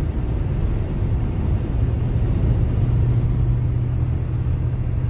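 Truck engine and road noise heard from inside the cab while driving: a steady low drone whose hum grows a little stronger about two seconds in.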